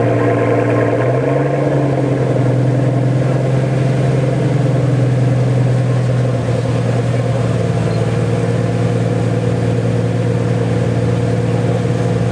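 Pagani Huayra's AMG V12 engine idling steadily through its exhaust. The idle rises slightly about a second in and settles lower again after about six seconds.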